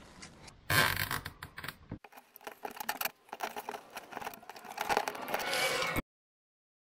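Zip ties being threaded through drilled holes in a plastic ATV fender: scraping and rustling of the plastic with many quick clicks. The sound cuts off suddenly about six seconds in.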